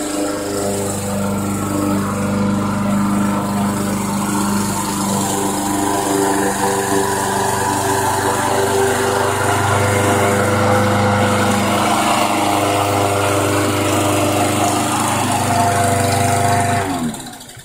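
Walk-behind gas lawn mower's small engine running steadily under load while mowing grass, then shut off near the end, winding down and stopping.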